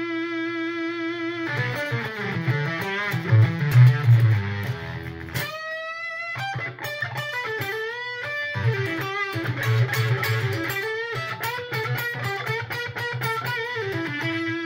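Electric guitar played through a NativeAudio Fry Bread fuzz pedal with the guitar volume low, a vocal, vowel-like fuzz tone. It holds a long sustained note rich in overtones, breaks into a phrase of low notes and bent and sliding notes, then settles back on the long sustained note near the end.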